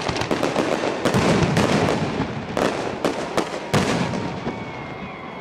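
Aerial fireworks going off in a rapid barrage: dense booms and crackling reports one after another, thinning out and fading after about four seconds.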